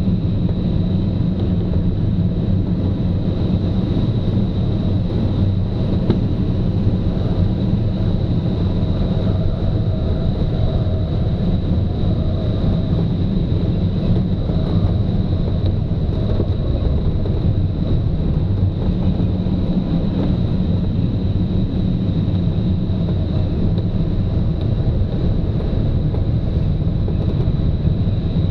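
Steady wind and airflow noise of an engineless glider in flight, with a faint steady high tone over it.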